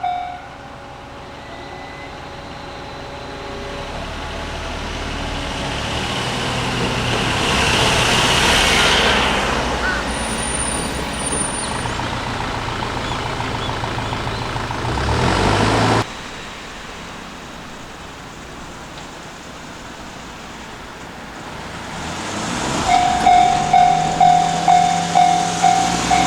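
A Japanese railway level-crossing bell stops ringing just after the start. A vehicle then passes close by, loudest about nine seconds in and breaking off suddenly at about sixteen seconds. Near the end the crossing bell starts ringing again, a pulsing ding about twice a second.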